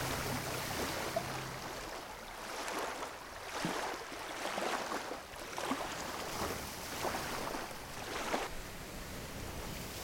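Water splashing and lapping with wind, coming in noisy surges about once a second.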